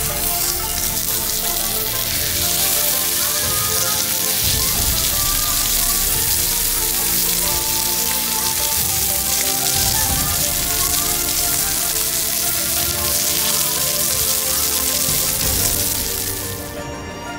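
Ribeye steak sizzling and frying in its fat on a hot pan, a steady crackling hiss, with background music underneath. The sizzle cuts off near the end, leaving only the music.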